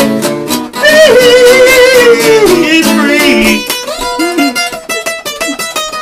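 A man sings one long, wavering held note over a strummed acoustic guitar. About halfway through the voice drops out and the guitar plays on alone with a steady strum.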